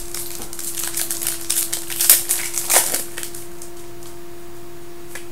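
Basketball trading cards and their pack being handled: a run of sharp clicks and rustling, busiest between about one and three seconds in, over a steady hum.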